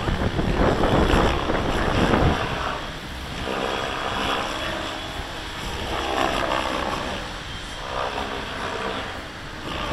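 Gaui X7 3D RC helicopter in flight: the whirring of its main rotor and drive, rising and falling in level as it manoeuvres, with wind buffeting the microphone.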